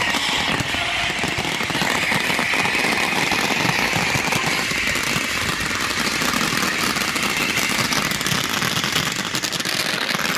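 Fireworks finale barrage: many shells bursting and crackling at once, so dense that the bangs run together into one steady, unbroken rattle.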